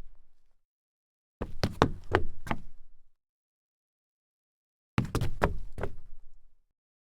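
Knocking: two sets of several quick, sharp knocks, each set lasting about a second and a half, with complete silence between them.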